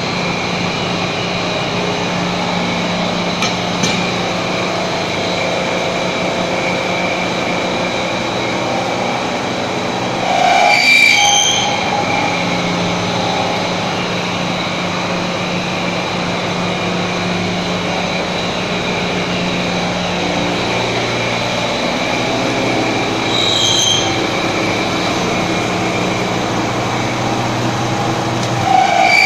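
Surface grinder running: a steady machine hum with a high whine, rising into short, louder metallic squeals about 11 seconds in, again around 24 seconds and at the very end.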